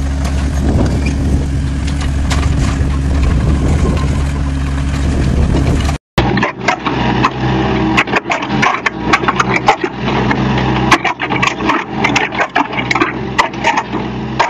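Compact crawler excavator's diesel engine running steadily with a low drone. About six seconds in it cuts to another small excavator working, its engine running under many sharp knocks and clanks from the bucket and tracks, with some scraping.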